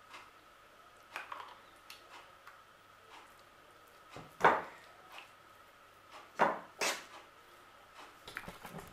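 Spoon knocking and scraping against a metal springform cake ring while spreading mayonnaise over grated egg: a few separate clinks, the loudest about four and a half seconds in and two more around six and a half to seven seconds, with smaller taps between.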